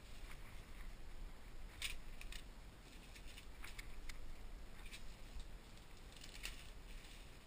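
Faint crinkling and crackling of plastic bubble wrap being handled and folded, in short irregular bursts, the loudest about two seconds in and again near six and a half seconds.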